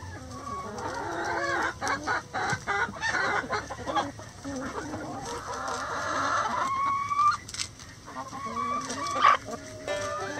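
A close flock of chickens clucking and calling over one another, with many sharp taps among the calls and one longer drawn-out call about two-thirds of the way through.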